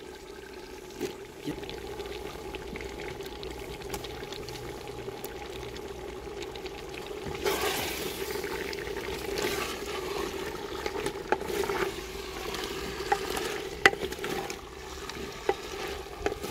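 A wooden spatula stirs turnip chunks into hot spinach masala in a clay handi, with scraping, sizzling food and sharp knocks of the spatula against the clay pot. The stirring and sizzle start about halfway through, and the knocks cluster near the end.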